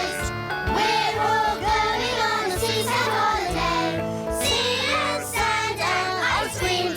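Cartoon children's song: young voices singing together over a bouncy backing track.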